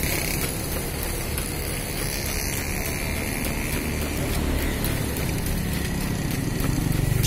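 Steady street traffic: motor vehicles running past, with an engine hum growing a little louder in the second half.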